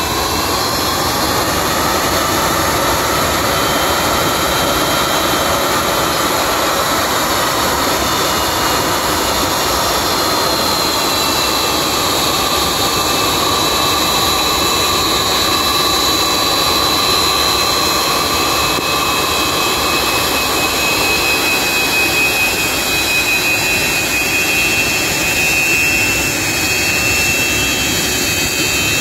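Antonov An-124 freighter taxiing, its four D-18T turbofan engines running at taxi power: a loud, steady jet rush with high whines over it.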